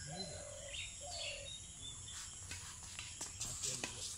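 Outdoor ambience of steady insect chirring with short bird chirps. In the second half, a few light sharp taps come from the badminton rally: racket strikes on the shuttlecock and shoes on the concrete court.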